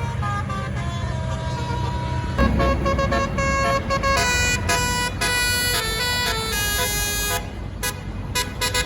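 A tour bus's Basuri telolet horn playing a melody of quick, changing musical notes, much louder from about two and a half seconds in and breaking into short separate blasts near the end, over the low running of a bus engine.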